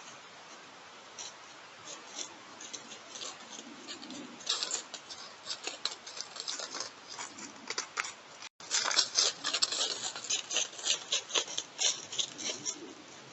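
Dry leaves crunching and rustling under an animal's steps close to a trail camera's microphone: irregular crackling that thickens about a third of the way in and gets louder after a brief dropout about two-thirds through.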